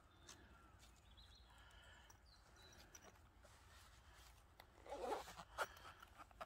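Zipper on a small black zip-around case being pulled shut, a few short rasps in the last second and a half after several seconds of near quiet.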